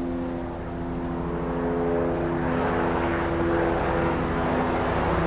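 An engine droning with a steady pitch, growing steadily louder as it approaches.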